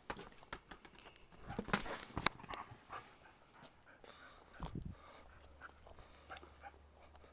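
A dog panting and scuffling about as it plays with a ball on grass, with scattered short rustles and knocks, busiest about two seconds in, and a low thump a little after the middle.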